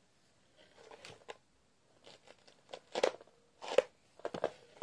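A brush pulled through a Furby toy's synthetic fur in a string of short, irregular strokes, the strongest about three seconds in.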